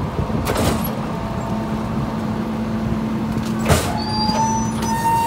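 Rear-loader garbage truck running its packer: a steady engine and hydraulic hum, a knock near the start, a louder metal clank just before four seconds in, then a high squeal that holds.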